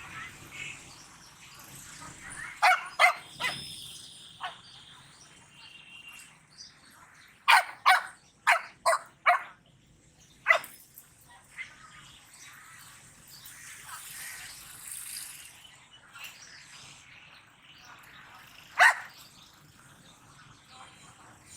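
A dog barking in short, sharp bouts: three barks a few seconds in, a quick run of five a few seconds later, then single barks twice more, with long pauses between.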